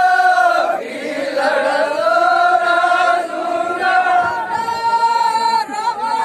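Chant-like singing of long held notes, the voice holding one pitch and then moving to a higher held note about four seconds in, with no drumbeat.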